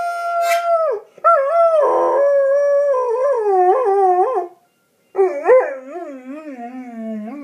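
Goldendoodle howling: three long howls, the first held on one steady note and breaking off about a second in, the next two wavering up and down in pitch, the last sinking lower.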